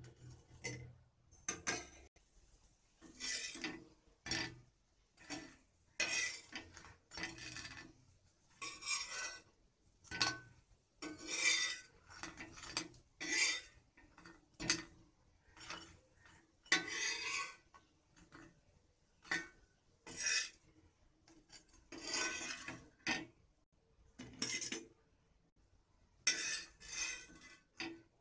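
Steel spatula scraping across a dry tava griddle as vadas are turned and moved with no oil, in repeated short scraping strokes about one a second, with a brief pause near the end.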